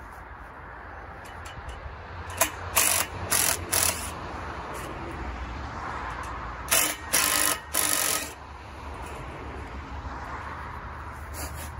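Cordless drill-driver run in two sets of short bursts, about four a little over two seconds in and three more around seven seconds, as it drives fixings into the chainsaw mill's end bracket on the log.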